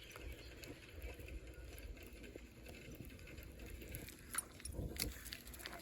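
Fishing reel being cranked after a cast: faint steady ticking of the reel's gears, with a few sharper clicks near the end.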